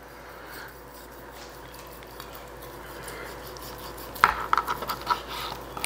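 Chef's knife cutting a roasted lamb rack into chops, held with metal tongs: quiet at first, then a sharp knock of knife or tongs on the cutting board about four seconds in, followed by a few lighter clicks and taps.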